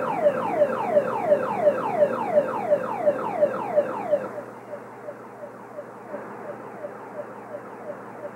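Electronic warning alarm sounding a rapidly repeated falling tone, about three sweeps a second, over a steady hum; about four seconds in it drops to a lower level and keeps repeating. It is the alert that goes with the beacons for standby and operation of the JT-60 fusion reactor.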